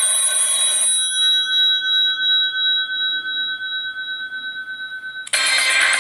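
Sony Xperia P stock ringtones playing. A bright chiming burst settles into a held ringing tone of several pitches that wavers in loudness for about four seconds. About five seconds in, a new, denser bright tone starts abruptly.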